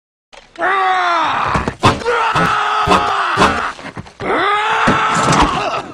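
A man's angry wordless screaming in two long yells, the first starting about half a second in and the second about four seconds in, with several hard thuds mixed into the first.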